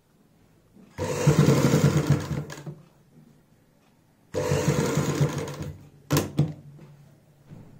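Sewing machine stitching lace onto fabric in two runs of about a second and a half each, starting and stopping abruptly, followed a moment later by two quick sharp clicks.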